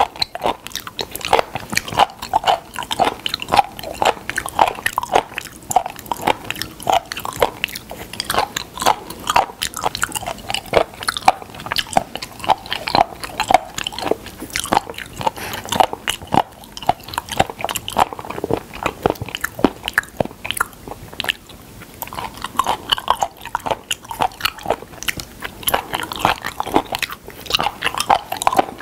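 Close-miked chewing of raw spoon worm (gaebul), a steady run of rapid, sharp clicks as the firm flesh is bitten and chewed.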